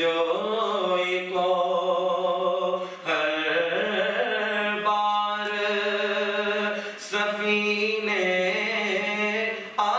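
A man chanting solo and unaccompanied into a microphone: long held notes with gliding ornaments, broken by short breaths about three and seven seconds in and again near the end.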